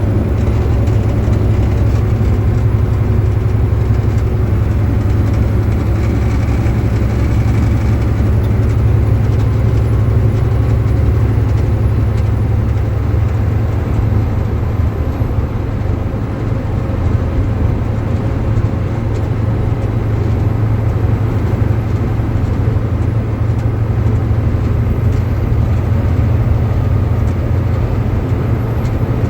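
2006 Volvo 780 semi truck's diesel engine running steadily with a low rumble, with faint steady tones above it. The owner takes the noise for a fault in the truck's air-conditioning system.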